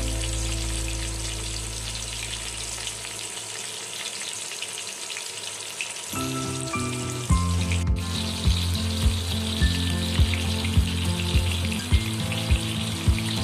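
Climbing perch (koi fish) frying in hot mustard oil in a wok, a steady sizzle. Background music fades out over the first few seconds and comes back about halfway through with a steady beat of about two thumps a second.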